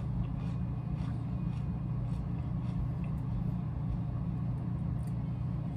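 Steady low mechanical hum with a few faint clicks over it.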